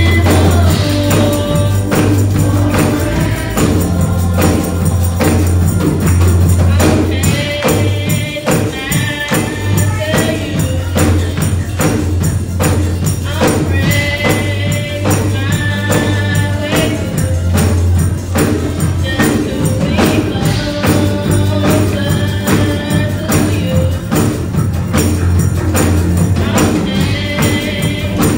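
Gospel choir of young people and children singing over a steady, fast percussion beat and a strong bass accompaniment.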